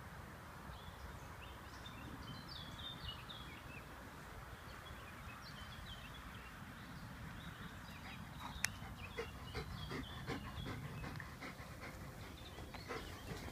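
Chocolate Labrador retriever panting hard after a fetch, quick rhythmic breaths that start about two-thirds of the way in as it comes up close, over a steady outdoor hiss.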